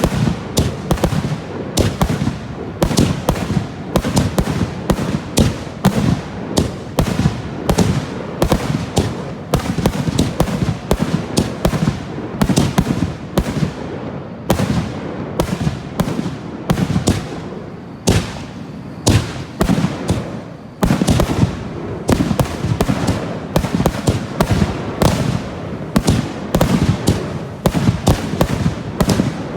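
Aerial fireworks finale: shells bursting in a rapid, nearly unbroken barrage of bangs, several a second, with a couple of brief lulls about two thirds of the way through.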